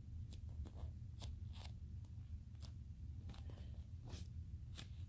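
Fingers squeezing and rubbing a soft foam squishy toy close to the microphone: irregular scratchy clicks and rustles, roughly two a second, over a steady low hum.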